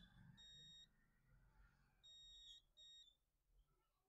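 SIV110 digital multimeter's continuity buzzer giving three short high beeps as the probes touch the phone board, the last two close together. The beeping shows a short reading, which the technician puts down to the board still being hot.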